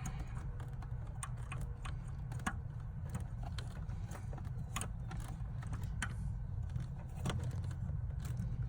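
Scattered small clicks and taps of metal and plastic parts being handled and fitted back in under a car's dashboard, about one every second or so, over a steady low hum.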